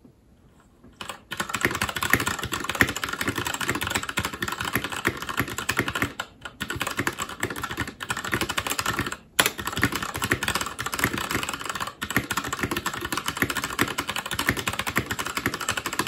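Fast touch-typing on a DREVO BladeMaster TE mechanical keyboard with Gateron Red linear switches: a rapid, continuous run of keystroke clicks. It starts about a second in and breaks off briefly a few times.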